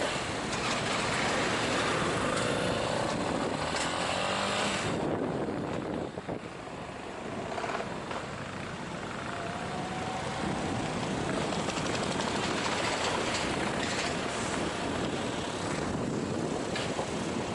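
A vehicle running steadily, with heavy wind noise on the microphone; the wind eases for a moment about five seconds in.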